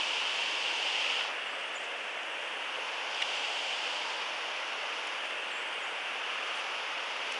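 Steady rushing of running river water, its hiss easing slightly about a second in, with one faint click about three seconds in.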